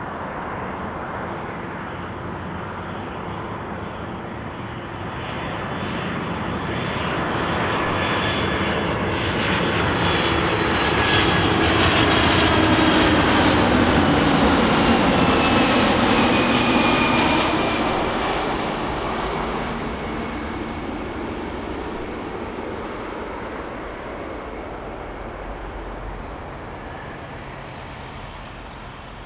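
Jet airliner passing on its landing approach. Its engine noise swells to a peak near the middle and then fades, with whining tones sliding down in pitch as it goes by.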